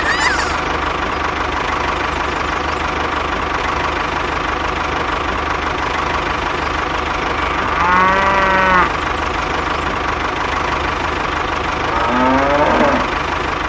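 Tractor engine running steadily, with a cow mooing about eight seconds in and again, more briefly, near the end.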